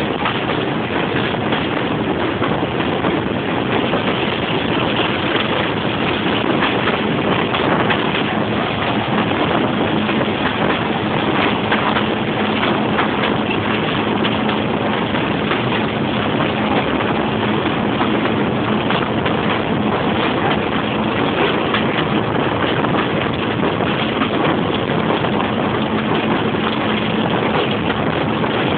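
British Rail Class 25 diesel locomotive's Sulzer six-cylinder engine running steadily under way, heard from a window of the train it is hauling, together with a loud rush of air and running noise.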